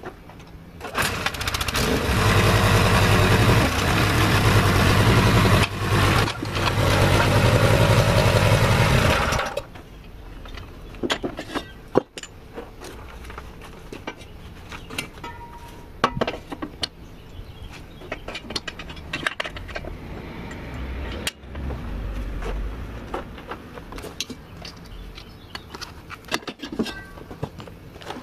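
Small petrol engine on a homemade backhoe, pull-started: it catches about a second in, runs loud and even for about eight seconds with a brief stumble midway, then cuts out. After that, scattered light clanks and knocks from the metal frame.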